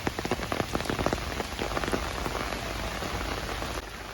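Heavy rain falling, with many sharp drop hits close to the microphone over a steady hiss. The close hits thin out toward the end and the sound drops a little just before it ends.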